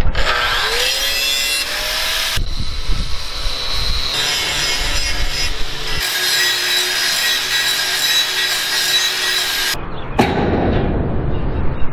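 Angle grinders grinding and sanding steel parts, the motor whine bending in pitch as the disc bites into the metal. The sound changes abruptly several times, and about ten seconds in it gives way to a quieter, different sound.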